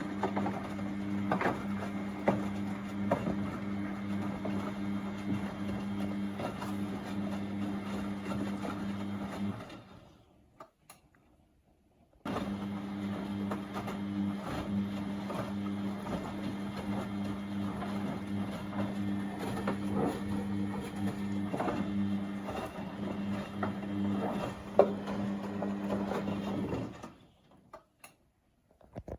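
Beko WMB71642W washing machine in its wash phase, the motor turning the drum with a steady hum and the clothes and water knocking and sloshing inside. The drum stops about ten seconds in, starts again a couple of seconds later, and stops again near the end: the tumble-and-pause rhythm of the wash.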